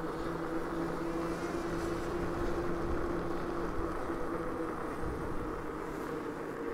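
Riding noise from a Himiway Cruiser electric fat-tire bike moving at speed: steady wind and road noise with a low, even hum over it.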